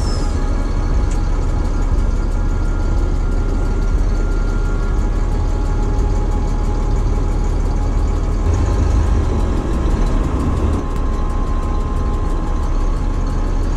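Diesel engine of a tractor-unit truck running steadily, heard from inside the cab as a low continuous rumble that grows a little heavier about eight seconds in.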